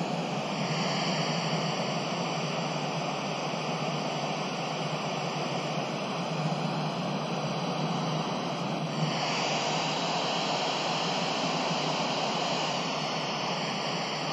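Steady hiss of FM static from a handheld 2-meter radio's speaker, with the squelch open and no voice coming through: the receiver is picking up no clear signal.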